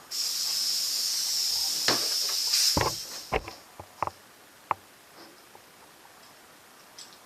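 Compressed air hissing through an inflator into a new presta-valve bicycle inner tube for about two and a half seconds, just enough to give the tube some shape. A few handling clicks and knocks follow.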